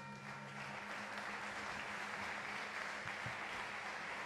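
Crowd applauding in an arena, a steady clapping wash, as the ring bell's last ringing dies away about half a second in, marking the end of the round.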